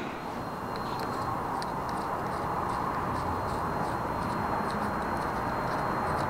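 Light, regular ticking of a hand tool working the Allen screws that fasten the camshaft sprocket on a Vespa 3V 150 engine, about two to three clicks a second from about a second in, over a steady workshop hum with a faint high whine.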